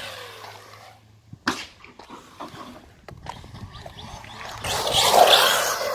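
Radio-controlled truck on tarmac: a sharp knock about a second and a half in, a few lighter clicks, then near the end a louder rushing sound of the truck's motor and tyres as it drives off across the asphalt.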